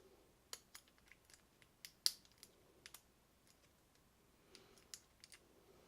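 Lock pick and tension wrench working the standard pin tumblers of a KIK lock cylinder: faint, irregular metallic clicks and taps, with one sharper click about two seconds in.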